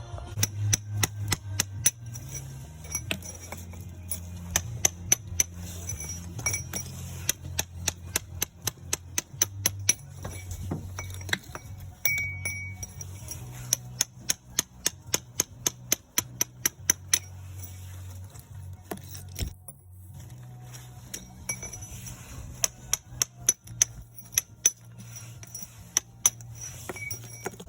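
Metal tool striking brickwork: a bricklayer's hammer and chisel knocking loose bricks and mortar out of a cracked wall, in bursts of sharp clinking blows several a second, with pauses between them. Background music plays underneath.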